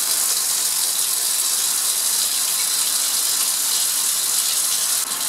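Steady rushing hiss of vacuum filtration: the vacuum drawing air and liquid through a fritted glass filter funnel into a filter flask.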